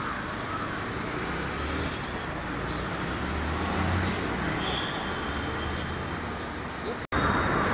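Outdoor street ambience: a steady hum of traffic noise with a low rumble, and a run of faint high chirps about halfway through. The sound drops out for an instant near the end.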